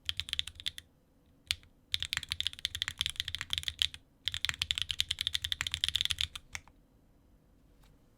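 Typing on a Frog mini mechanical keyboard with Swagkey x Gateron Modern Gray switches, an aluminium plate, no case foam, stock-lubed switches and GMK Dots keycaps. The keys are struck in fast runs of one to two seconds with short pauses. The typing stops about two-thirds of the way through.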